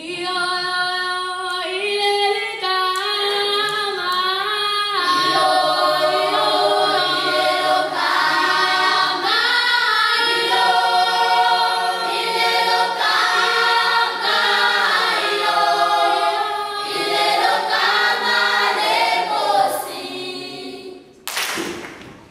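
Children's choir singing a cappella in several-part harmony, the chords held and shifting. About a second before the end the singing breaks off and two sharp knocks are heard.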